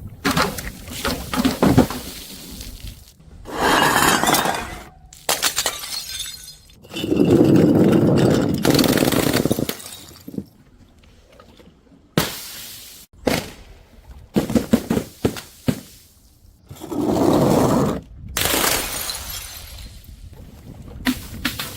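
Glass bottles smashing and shattering, several crashes in turn, with sharp clinks and rattling of glass between them.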